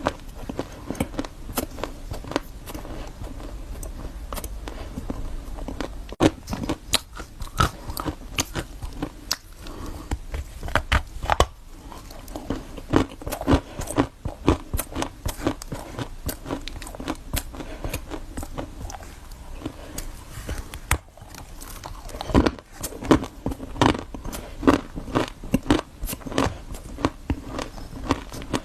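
Close-miked eating: a person biting and chewing crunchy, crumbly food, with many irregular crackles and crunches coming in clusters, and a short pause a little past two-thirds of the way through.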